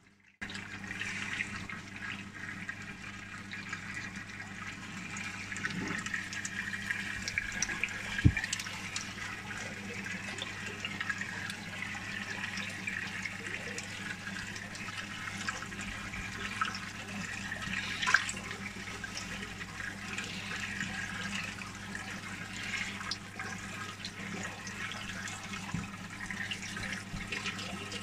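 Water splashing and trickling into a fish-rearing tank from its return hose, with a steady low hum underneath. Two sharp knocks stand out, about eight seconds in and again near eighteen seconds.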